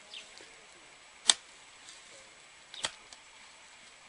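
A hand hoe chopping into the soil with two sharp strikes about a second and a half apart, the first louder.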